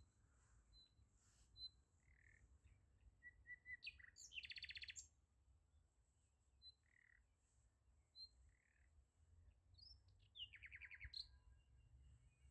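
Faint bird chirps, with two short, rapid trills about four seconds in and again near eleven seconds.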